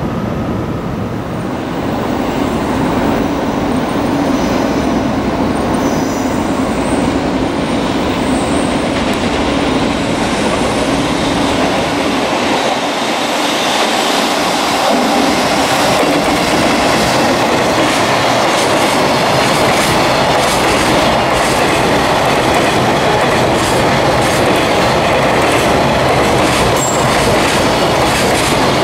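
A long container freight train hauled by a JR Freight EF210 electric locomotive rolls past, its wheels clacking over the rail joints. The rumble grows louder over the first few seconds as the wagons come close, then holds steady.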